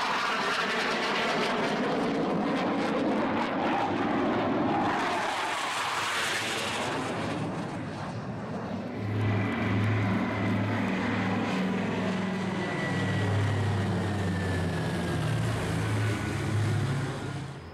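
A jet aircraft passing overhead, a loud, steady rush of jet noise whose tone sweeps as it goes by. About nine seconds in, a piston-engined propeller plane takes over with a low, pulsing engine drone.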